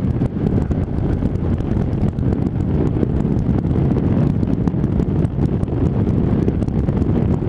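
Wind buffeting a helmet-mounted microphone on a moving motorcycle: a loud, rough, steady rumble of wind noise that gets through the extra foam wrapped around the mic.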